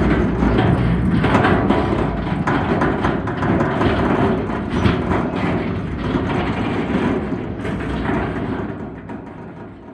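Crawler undercarriage of an SRs 1800 bucket-wheel excavator travelling: a heavy, steady rumble with many small clanks and creaks from the track plates. It fades out near the end.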